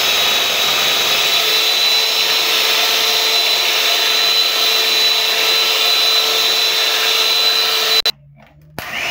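Electric hand mixer running steadily as its beaters whip a liquid egg, cream and condensed-milk custard mix in a plastic bowl. It cuts out abruptly about eight seconds in and starts up again near the end.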